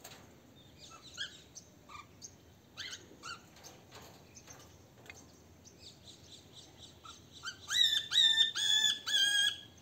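Caged parrots chirping faintly, then a run of about six loud, short, repeated calls over roughly two seconds near the end.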